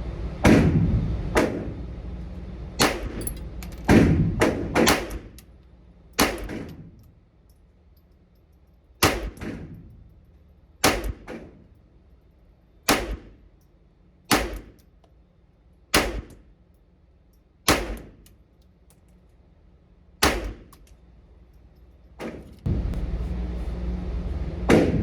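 Smith & Wesson M&P 22 pistol firing CCI Standard Velocity .22 LR unsuppressed: a string of sharp single shots, a quick cluster at first and then one every second or two. A steady low rumble comes in near the end.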